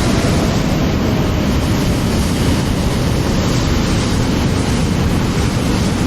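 Steady cabin noise of a Boeing 777: an even rush of engine and air noise with no distinct tones.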